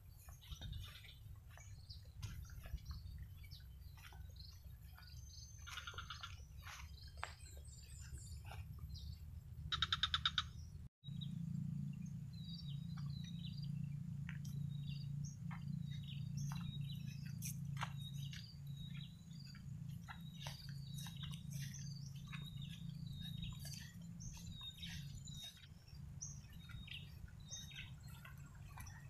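Small birds chirping repeatedly over a steady low rumble. A brief, louder rattling sound comes about ten seconds in, followed by a split-second dropout where the recording cuts.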